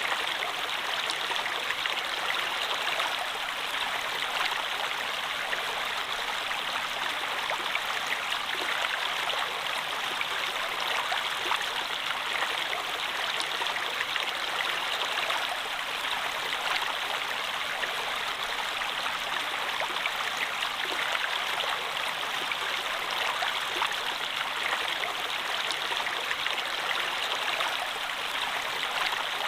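Water running steadily in a stream, an even rush with fine splashes.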